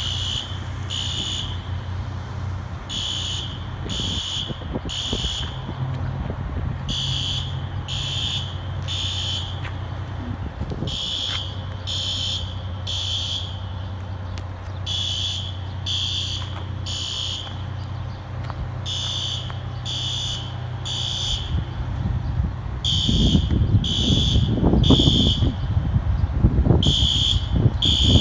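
System Sensor fire alarm horn strobes sounding the evacuation code: three short, high-pitched blasts, then a pause, the group repeating about every four seconds. The alarm is a false alarm. A low steady hum sits underneath, and from about 23 seconds in, wind buffets the microphone and is the loudest sound.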